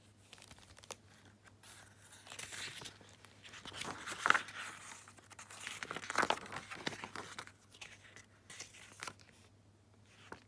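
A hardcover book being opened and its front pages turned: paper rustling and crinkling, loudest about four and six seconds in.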